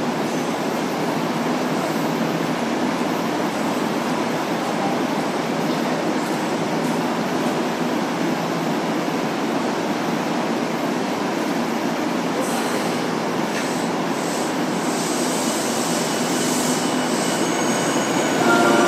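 Tokyu 5050-series electric commuter train standing at a platform with a steady hum from its onboard equipment, then starting to pull away near the end, its inverter motor whine beginning to rise.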